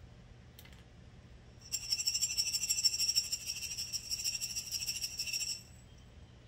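Aroma beads shaken hard in a small glass mason jar, a fast continuous rattle that starts about two seconds in and stops about four seconds later, coating the beads with mica powder.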